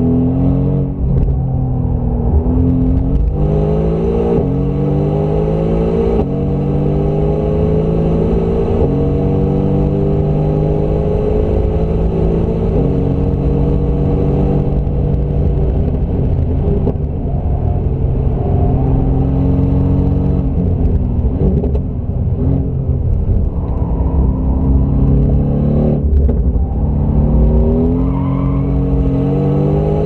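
Mercedes-AMG GT R's twin-turbo 4.0-litre V8 heard from inside the cabin, driven hard: the engine note climbs as it accelerates, drops sharply at each gear change, and sags and rises again several times as it slows for corners and pulls away.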